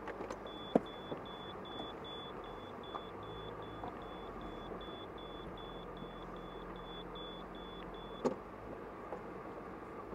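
Inside a slowly moving car: steady engine and cabin noise with a short, high electronic beep repeating about two and a half times a second, which stops about eight seconds in. A sharp knock sounds about a second in and another just after the beeping stops.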